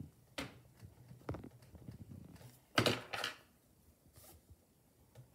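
Eraser rubbing on drawing paper in a few short strokes, the loudest about three seconds in.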